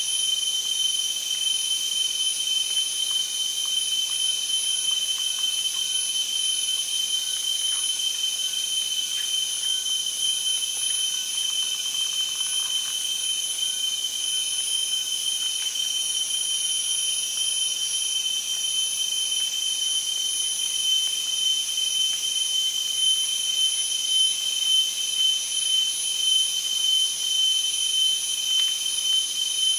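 Steady shrill insect chorus holding several high-pitched tones without a break, taking on a slow pulsing in the second half.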